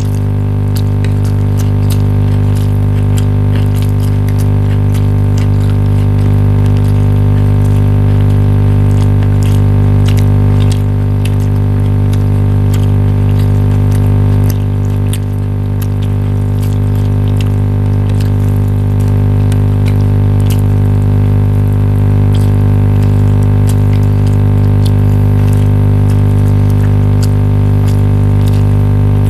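Loud, steady mechanical hum like an electric motor running, a low buzzing tone with its overtones that holds unchanged, with faint scattered clicks over it.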